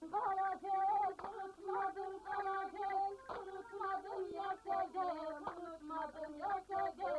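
A woman singing a Turkish folk tune, with sharp percussive beats every second or two.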